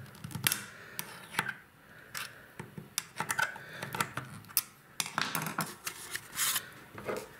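Metal screwdriver tip scraping and clicking inside a bathroom faucet's brass valve body as it pries at the brittle old rubber base seal; irregular small clicks and short scrapes.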